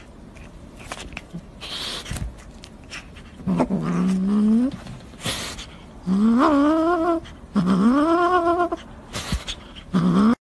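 A cat giving three drawn-out, low meows that each rise in pitch, with a fourth starting at the very end, while it bites at a dark object. Short noisy bursts come between the calls.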